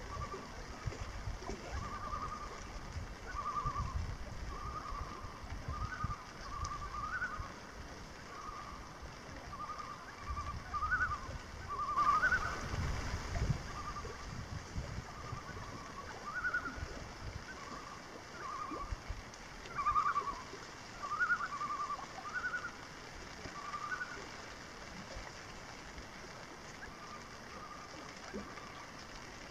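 A bird calling over and over in short notes, one or two a second. Wind gusts buffet the microphone through the first half.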